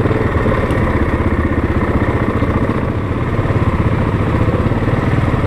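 ATV engine running steadily under way, a dense even pulsing with no change in pace.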